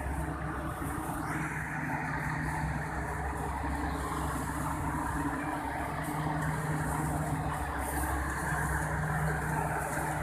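A motor vehicle engine running steadily, a low even hum with no bird calls standing out.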